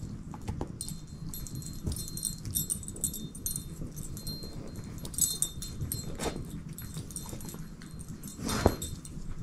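Shepherd-mix dog chewing and gnawing a plush rope toy: irregular mouthing and rustling with many small clicks and light clinks, and one louder, sharper bite near the end.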